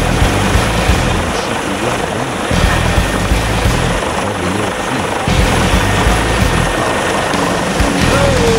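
Military helicopter flying close by, a loud steady noise of rotor and turbine.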